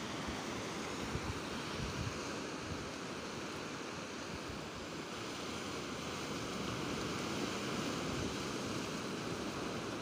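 Sea surf washing on the shore, a steady rushing noise.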